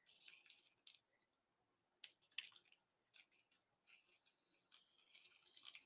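Faint, scattered snips and crinkling of scissors cutting through a thin black plastic lawn and leaf bag along its side seam.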